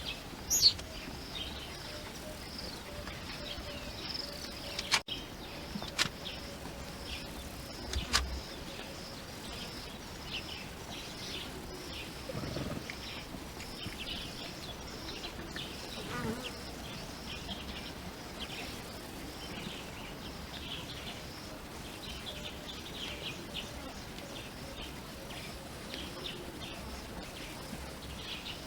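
Bush ambience: a steady insect drone with many short bird calls scattered through it, and a few sharp clicks.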